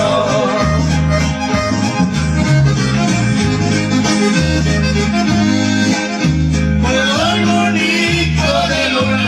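Corrido music, mostly instrumental, with an accordion melody over a bass line that steps between notes in a steady rhythm.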